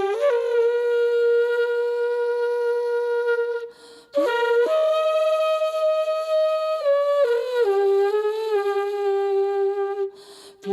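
A wordless solo melody of long held notes, sliding up into new notes, broken twice by short pauses like breaths.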